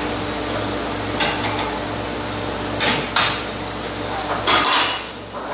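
Hand tools clanking and knocking against metal as a mechanic works on a car's underside: three short bursts of metallic clatter, over a steady background hum.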